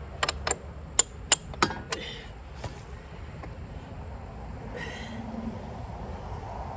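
A quick run of about six sharp metallic clinks and knocks in the first two seconds, tools striking the iron parts of an old sawmill frame being taken apart, over a steady low rumble.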